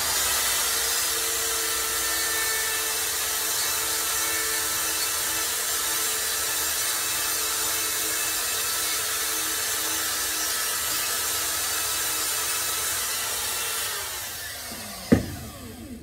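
Rotozip spiral saw fitted with a sanding wheel, running at high speed as it grinds the shape into a hard Micarta knife scale held in a vise. Near the end it winds down, and there is one sharp knock.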